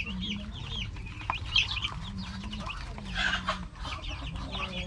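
A brood of young chicks peeping continuously, many short falling peeps overlapping, over a low steady hum. The chicks are lively and warm under a brooder lamp.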